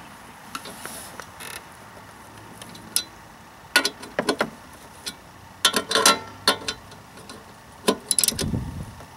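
Ratchet and socket tightening the bolts of a lawn mower blade: scattered sharp metallic clicks and clinks, bunched in a few short runs, with a dull low thump near the end.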